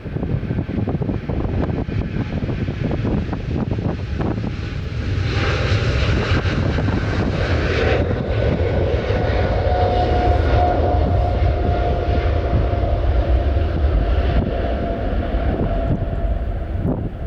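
Jet airliner passing close by: a steady deep rumble with a high engine whine that comes in about five seconds in and gives way to a lower steady whine. Wind buffets the microphone.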